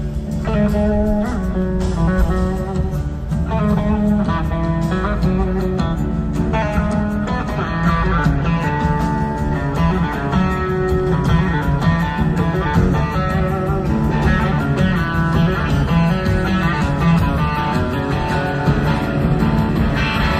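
Live blues-rock band playing an instrumental jam: an electric slide guitar leads over organ and keyboards, bass and two drum kits. The music plays steadily and loudly throughout.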